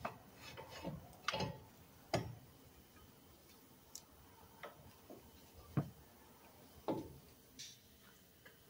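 Irregular light clicks and knocks, about nine in all, as a brake caliper and a hook-shaped caliper hanger are handled and the caliper is hung on the strut.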